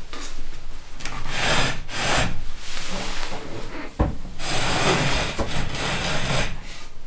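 Wooden fusuma sliding doors being slid open along their tracks: two long rubbing slides, with a sharp knock between them about four seconds in.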